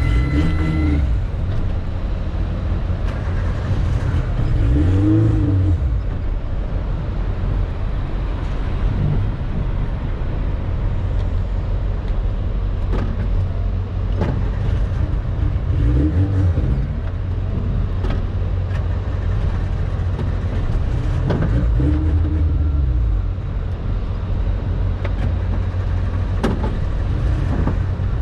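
Suzuki Samurai's small four-cylinder engine running steadily under way, as heard inside the cabin, with the engine pitch climbing and dropping several times as it accelerates.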